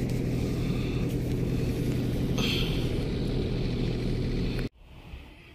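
Car driving, heard from inside the cabin: a steady low engine and road rumble. It cuts off abruptly near the end.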